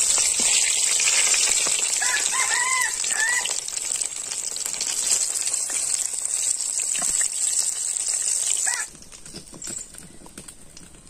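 Chicken leg pieces deep-frying in hot oil in a wok: a dense sizzle with many small pops, which drops sharply to a much fainter sizzle about nine seconds in. A few short bird calls sound over it about two to three seconds in.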